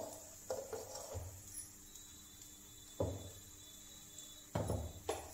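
A few soft knocks and scrapes of a spoon and steel bowl as gram flour is spooned over cauliflower florets, the loudest cluster near the end.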